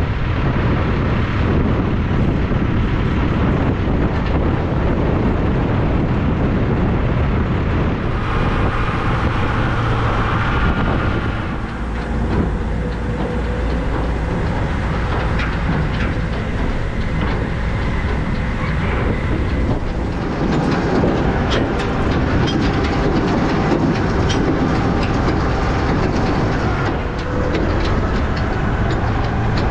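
Heavy farm machinery running loud and steady with a low rumble and rattling, with clanks and knocks coming more often in the second half.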